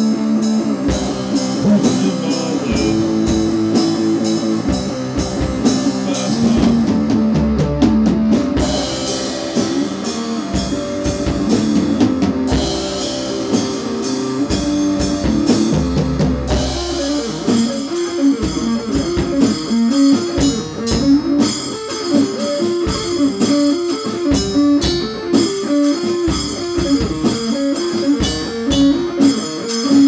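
Instrumental break in a rock song: guitars played over a drum kit and bass, with no singing.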